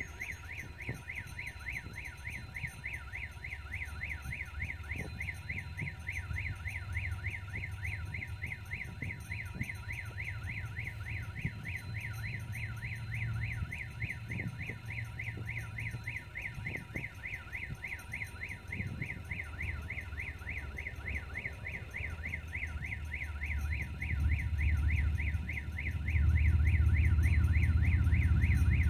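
Level-crossing warning signal sounding a rapidly repeating warbling electronic tone throughout. Under it the low engine rumble of an approaching GE TE33AC diesel locomotive grows, becoming much louder near the end.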